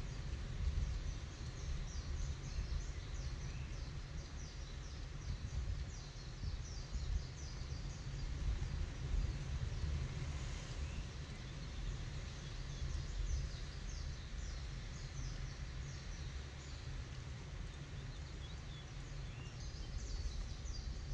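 Outdoor ambience: many small birds chirping high and quick, over a low, uneven rumble.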